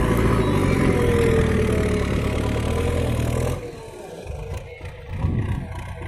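Backhoe loader's diesel engine running loud and steady; about three and a half seconds in the sound drops suddenly to a quieter engine with light clatter.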